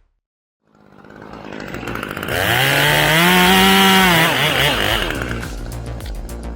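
A chainsaw revving: it builds up from about a second in, holds at a high pitch, then drops back about two-thirds of the way through to a lower, rougher running with rapid ticking.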